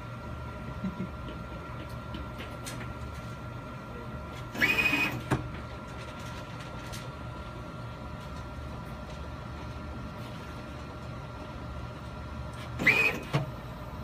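Automated switch-test machine with an electric actuator running over a steady electrical hum. About five seconds in, and again near the end, it makes a brief loud whine of motion, each followed by a click.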